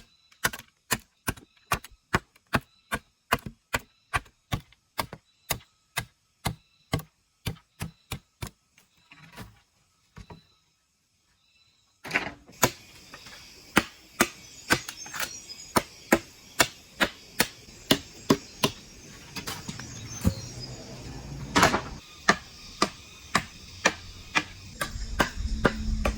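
Fast, evenly spaced chopping strokes of a blade into bamboo, about three a second. They stop briefly about ten seconds in. Then they start again over a steady background hiss.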